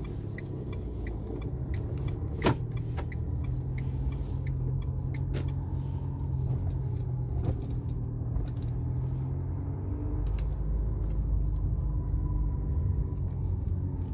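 Car on the move, heard from inside the cabin: steady engine and road rumble. A light regular ticking runs through the first couple of seconds, and there is one sharp click about two and a half seconds in.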